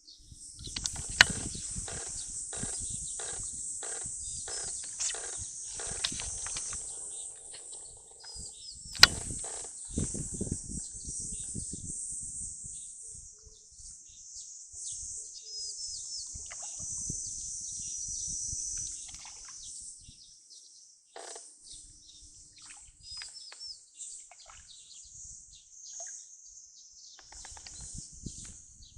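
Outdoor ambience: a steady high chorus of insects, with scattered bird chirps. Low thumps and rustling come through, mostly in the first dozen seconds, and two sharp clicks stand out, one about a second in and one about nine seconds in.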